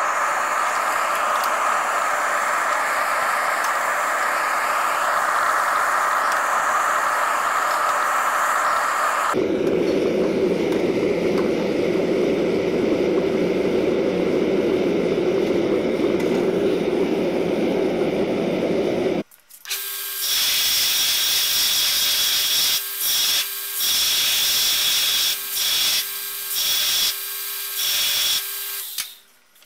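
Gas forge burner running with a steady hissing rush, dropping to a lower, deeper rush about nine seconds in. From about twenty seconds in, a belt grinder runs with a steady hum, broken by several abrupt cuts.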